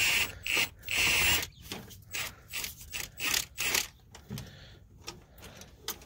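Two short bursts of an impact wrench on the starter mounting bolts in the first second and a half, then a run of light metallic knocks and clinks as the heavy starter is worked loose.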